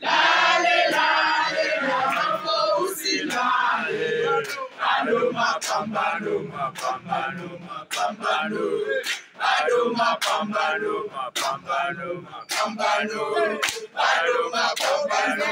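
A group of men chanting and singing together in unison, loud and rhythmic, with sharp hits cutting through the voices.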